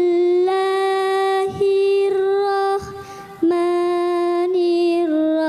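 One high voice reciting the Qur'an in melodic tilawah style, drawing out long held notes that step slightly up and down in pitch, with brief breaks between phrases.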